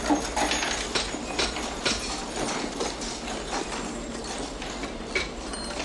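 Irregular light knocks and clinks of metal being worked by hand at a workshop bench, over a steady low hum.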